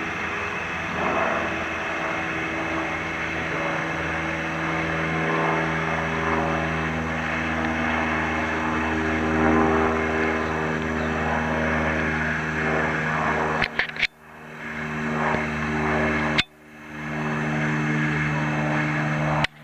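Aircraft engine running with a steady drone of several even tones. The sound cuts out abruptly about fourteen seconds in, again a couple of seconds later, and once more near the end, each time coming back up.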